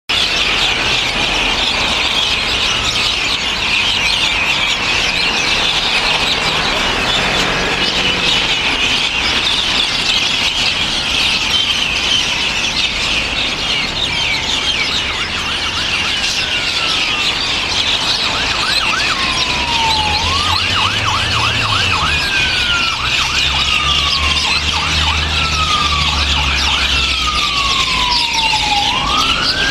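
A large flock of birds chattering in dense, overlapping high calls as they gather in trees at dusk. From about halfway through, an emergency-vehicle siren joins in with repeated falling wails and quick yelping sweeps, over a low rumble.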